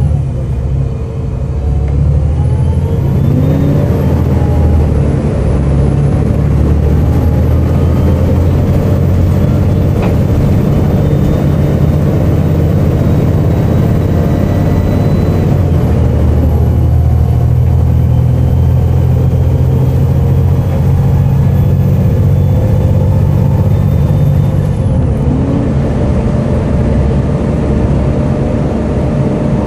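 Volvo B7TL double-decker bus heard on board under way: its six-cylinder diesel engine and drivetrain run steadily, the pitch shifting a few times as the bus changes speed. A thin high whine rises about three seconds in, dips briefly midway and falls away near the end; this is the strange hoover-like noise the uploader puts down to the cooling fan.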